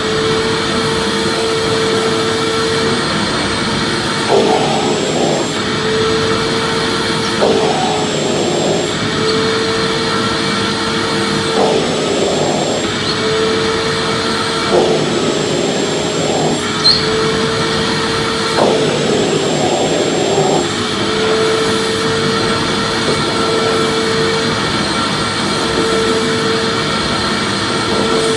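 Vacuum cleaner running steadily, a loud rushing whir with a constant hum, played as a soothing noise for a baby. Its tone briefly changes every three to four seconds.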